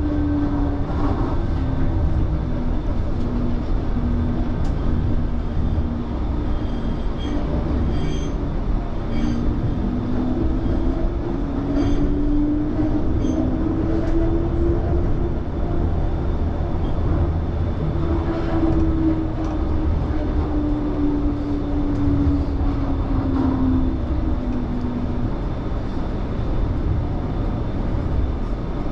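Low-floor light rail tram running along its track: a steady low rumble from wheels and running gear, with a motor whine that dips, rises and then falls again as the speed changes. A few sharp clicks sound from the wheels and rails about a third of the way in.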